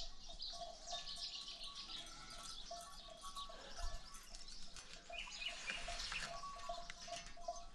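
Faint outdoor birdsong: small birds chirping and twittering, scattered throughout. Beneath it a faint note repeats a few times a second.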